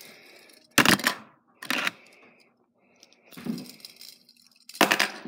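Hard plastic Lego pieces clattering and knocking against a hard surface: three sharp clacks, about a second in, near two seconds and near the end, as an attempt with the Lego fidget spinner goes wrong.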